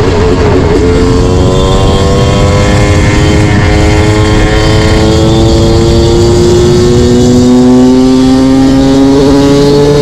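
Yamaha YZ250 two-stroke single-cylinder motorcycle engine under way. Its note drops about a second in, then the revs climb slowly and steadily as the bike pulls in one gear.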